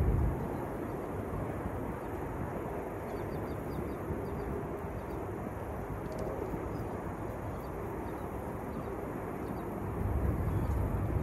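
Wind rumbling on the microphone over open water: a steady low noise, with a stronger gust about ten seconds in.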